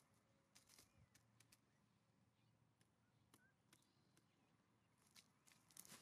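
Near silence with faint, scattered clicks and taps, the loudest few near the end: a common raven pecking dried mealworms off a wooden stump and stepping through dry leaf litter.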